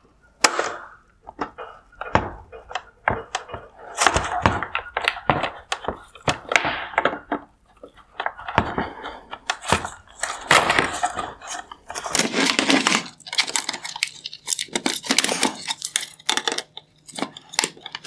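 Hard plastic clicking, cracking and scraping as the white plastic mounting clips holding a bi-xenon headlight's projector are squeezed and released and the projector is worked loose in its plastic housing. Many irregular sharp clicks and short scrapes.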